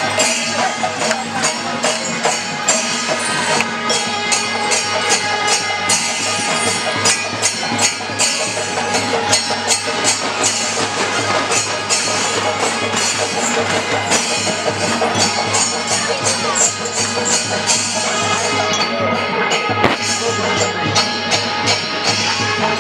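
Music with fast, dense percussion: a rapid, steady run of sharp jingling and clicking beats over sustained held tones.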